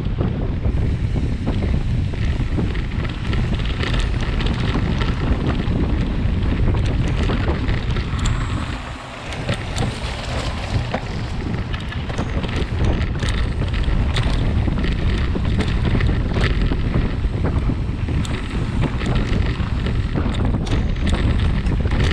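Wind rushing over the microphone of a camera riding along on a mountain-bike descent, with the bike's tyres rolling over leaf-covered dirt and many small clicks and rattles from the bike on the rough trail. The wind noise drops briefly about nine seconds in.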